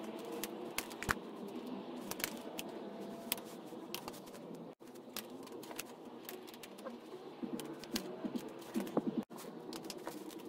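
Scattered metallic clicks and clinks of hand tools working the dirt bike's front axle nut and fork pinch bolts as they are tightened down, with a quicker cluster of clicks near the end.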